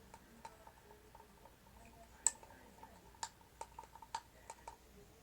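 Handling noise from slime-making containers: a run of about seven sharp clicks and taps, the loudest a bit over two seconds in, as small containers and lids are closed and set down.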